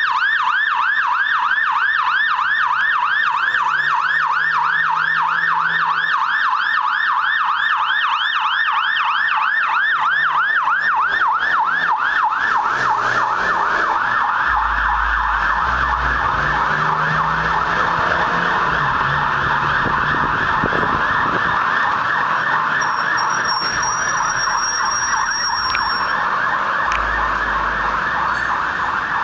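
Fire ladder truck's siren sounding continuously in a fast yelp, rising and falling several times a second, which turns into a denser, rougher warble about twelve seconds in. A low rumble comes through as the truck passes midway and again near the end.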